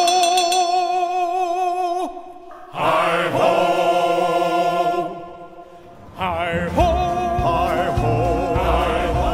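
A choir singing long held notes with vibrato as ride music, in three phrases with short breaks between them. A low rumble joins under the singing about seven seconds in.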